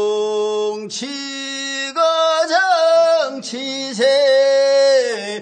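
Male singing of a Korean rice-seedling-pulling work song (모찌는 소리), the refrain '뭉치가 장치세' sung in long held notes.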